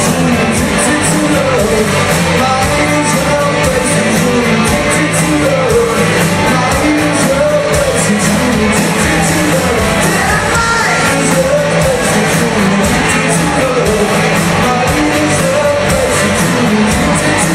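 Live rock covers band playing loud, with a singer's voice over the band and a steady beat.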